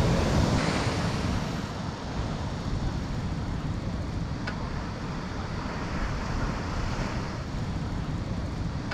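Sea waves breaking on the shore and washing back, loudest in the first couple of seconds, then settling into a steady rumbling wash. Wind buffets the microphone.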